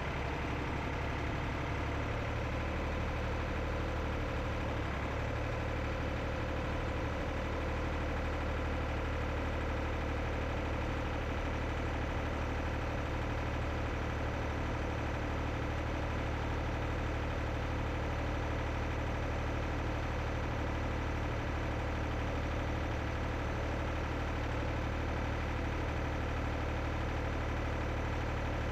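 An engine running steadily at one speed, an even low hum that does not change.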